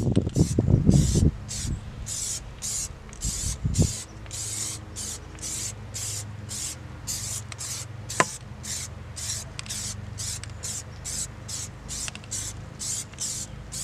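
Aerosol can of black Plasti Dip rubber coating spraying onto a wheel rim in short repeated hisses, about three a second, as a first coat is laid down. A low rumble of handling noise sounds in the first second or so, and a single click comes about eight seconds in.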